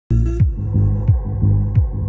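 Runway music starts abruptly: a deep throbbing bass line with a downward-sliding bass hit and a short click about every two-thirds of a second.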